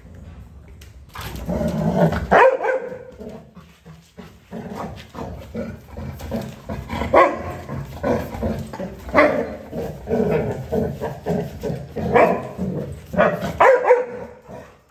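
A dog barking and whining over and over as it tries to reach a ball stuck under a car. The run mixes short yelps with several loud barks and cuts off suddenly near the end.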